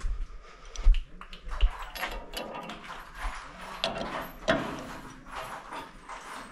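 Irregular clicks, knocks and clinks of hand tools and metal parts being handled during assembly work, with a few low thumps in the first two seconds.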